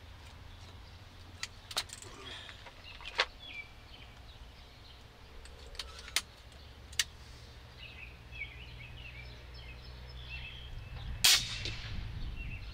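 A few scattered sharp clicks and knocks, then near the end a single loud shot from a .257 AirForce Texan big-bore PCP air rifle, with a short trailing echo.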